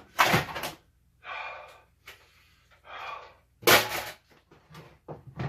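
A man breathing hard in gasps and hissing breaths, about five in all, from the burn of ghost pepper chips in his mouth and throat.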